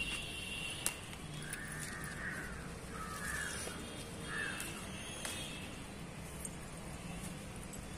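A crow cawing three times in the first half, the calls about a second apart, with a single sharp click about a second in.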